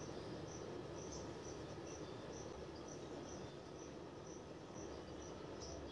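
A cricket chirping faintly and steadily, short high chirps two or three a second, over low room hiss.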